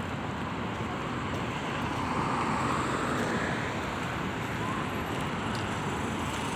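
Steady road traffic on a city street, one vehicle swelling louder as it passes about two to four seconds in.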